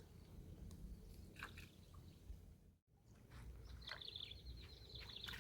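Near silence: faint outdoor background with a few soft clicks, a brief dropout about three seconds in, and a faint high-pitched trill for the last second and a half.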